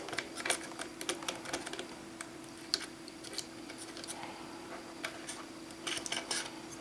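Irregular light clicks and taps of small repair tools against an iPhone 6S's case and parts, with a faint steady hum underneath.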